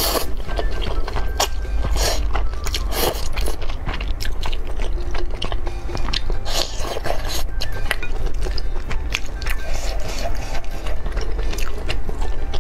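Close-miked mukbang eating sounds: noodles slurped in with chopsticks, then wet chewing, as a string of short, sharp mouth noises. Quiet background music runs underneath.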